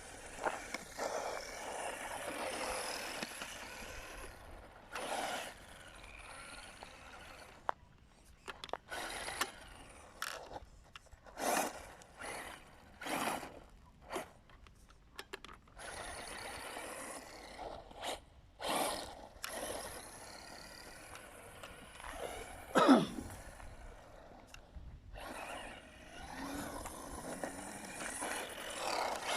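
Electric RC buggy driving on a rough dirt track: repeated bursts of motor whine and tyres scrabbling over dirt and gravel that come and go as it accelerates and runs past. The loudest is a short, sharp burst about three-quarters of the way through.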